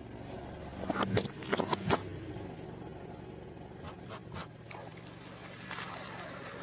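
Car tyre rolling onto and crushing floral foam blocks: a cluster of sharp crunches and crackles about a second in, a few more later, over the car's low running hum.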